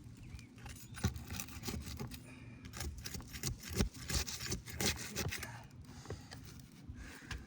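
Brittle asphalt roof shingles being worked loose: irregular scraping and small clicks as the shingle above is lifted and its sealant strip pulled apart.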